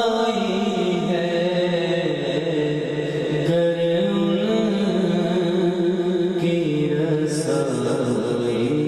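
A man singing a slow solo chant into a microphone without instruments, holding long notes that slide slowly up and down in pitch.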